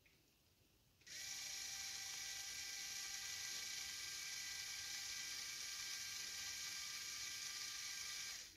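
LEGO M motor and its 8:1 gear train driving the boom winch, whirring steadily with a high gear whine as the boom is lowered. It starts abruptly about a second in and stops just before the end.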